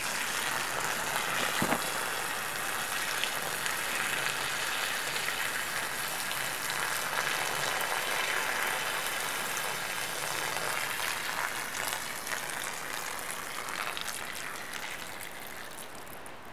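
A thin jet of water squirting from a two-stroke exhaust-duct test piece and splashing onto gravel in a steady patter. The patter weakens over the last few seconds as the reservoir drains and the flow runs out.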